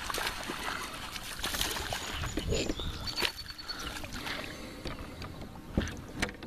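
Water splashing and sloshing at the side of a kayak as a small bass hooked on a hollow-body frog is brought alongside and grabbed by hand, with several short sharp knocks.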